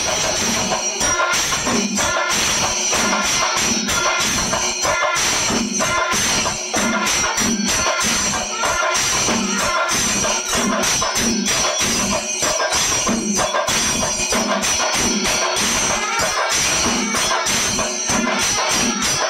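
Kerala chenda melam: a group of chenda drums beaten with sticks in a loud, steady, driving beat, over a constant metallic shimmer of cymbals and held tones from a row of wind instruments.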